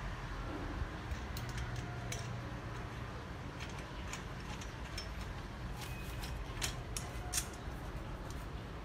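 Scattered light metallic clicks and taps of bolts and metal frame parts being handled and fastened as the push handle is fixed to the frame of a push-type grass trimmer, with two sharper clinks about two-thirds of the way through.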